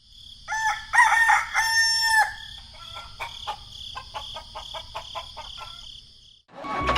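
A rooster crowing once, followed by a run of short clucks for several seconds.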